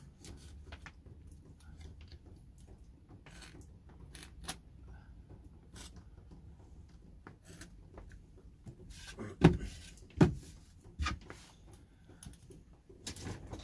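Quiet workbench handling noises: a pen scratching as it traces around a small wooden bowtie template on a board, with scattered small clicks and two louder knocks a little past the middle.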